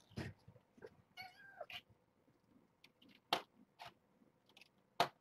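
Four-week-old kittens mewing and scuffling, with one short, high mew about a second in. A few sharp taps or knocks come from their play, the loudest just past the middle and again near the end.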